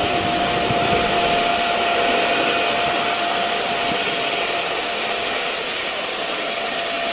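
Small jet turbine engine mounted on a golf cart running steadily: an even rushing noise with a steady high whine over it.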